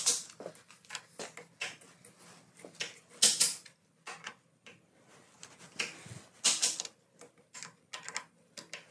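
Irregular clicks, taps and small rattles from an e-bike's handlebar and controls being handled and adjusted, with a few sharper knocks.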